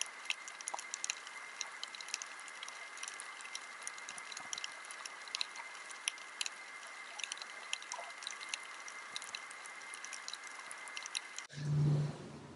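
Underwater reef ambience: a dense, irregular crackle of snapping shrimp clicks over a steady hiss. It cuts off abruptly near the end, followed by a short low hum.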